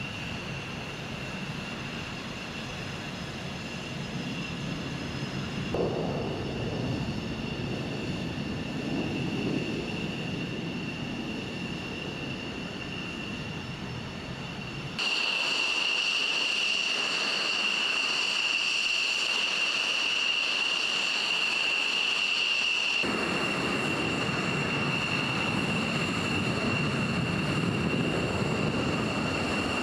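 Saab JAS 39 Gripen fighter jet idling on the ground: a steady high-pitched turbine whine over a low rumble. The mix changes abruptly twice, about halfway through and again about two-thirds of the way, with the rumble dropping away and the whine louder in between.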